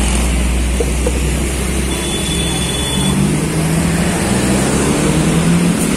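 Diesel engine of a long-distance coach bus pulling away and passing close by: a steady engine drone over a heavy low rumble that eases about two seconds in.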